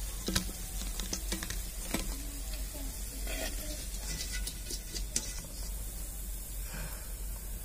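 Freshly deep-fried cauliflower 65 and its oil sizzling, with scattered sharp crackles and pops that thin out and die away about five and a half seconds in.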